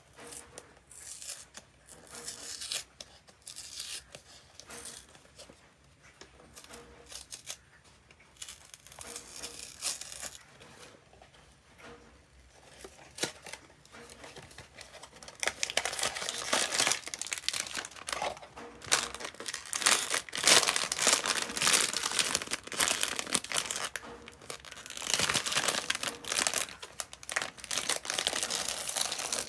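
A small cardboard blind box being opened by hand, with light scraping and rustling as the flap is lifted and the cardboard insert pulled out. About halfway through this gives way to loud crinkling and tearing of a foil bag being torn open.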